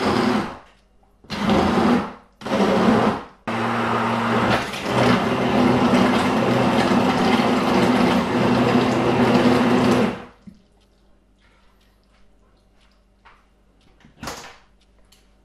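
Stick blender puréeing macerated plums for jam in a stainless steel bowl: two short pulses, then a steady run of about six seconds that stops suddenly. A single knock near the end.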